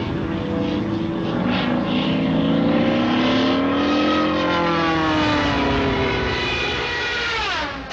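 Propeller aircraft engine drone, used as a dramatic effect, holding one steady multi-tone pitch. It rises a little to a peak around the middle, then sinks and drops away steeply just before the end.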